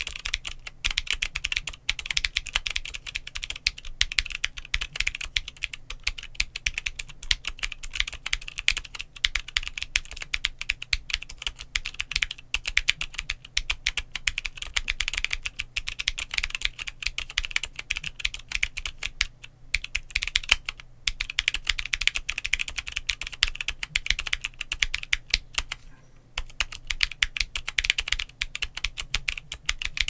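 Continuous fast typing on a GMMK Pro mechanical keyboard with Glorious Raptor linear switches and Glorious Polychroma keycaps: a dense stream of key clacks. There are brief lulls about twenty seconds in and again about twenty-six seconds in.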